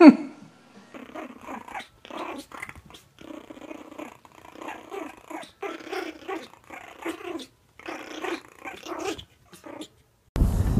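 Two Pomeranian puppies growling over a sock they are both tugging, in short rough growls that follow one another every half second or so. At the very start there is a loud brief cry from a dachshund, falling steeply in pitch, and near the end there is a cut to loud wind noise on the microphone.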